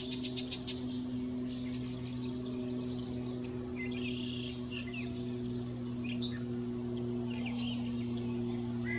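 Yellow-breasted chat singing: a fast run of repeated high notes at the start, then, after a pause of a couple of seconds, scattered whistles and short chattering notes. A steady low hum runs underneath.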